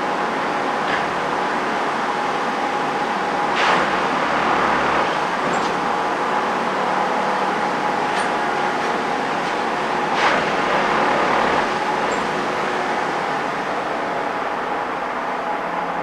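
Plasser & Theurer 08-32U multiple tie tamper at work tamping ballast: its diesel engine and hydraulics running steadily with a whining tone. Two louder hissing rushes come about four and ten seconds in.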